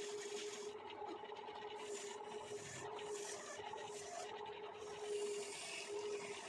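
Wood lathe running with a steady hum while a tool scrapes against the spinning wooden bangle blank in repeated strokes, the scraping coming and going about once a second.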